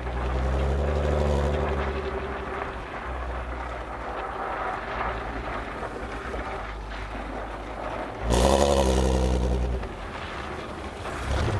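Stock exhaust of a MkV Volkswagen Golf R32's 3.2-litre VR6 engine, heard from the rear bumper while driving. It swells under throttle for the first couple of seconds, settles to a steady lighter drone, then opens up suddenly and loudly for about a second and a half before dropping back, with another rise near the end.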